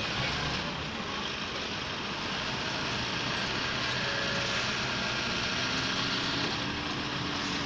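Heavy truck tractor hauling a tracked excavator on a low-loader trailer, its diesel engine running steadily at low revs.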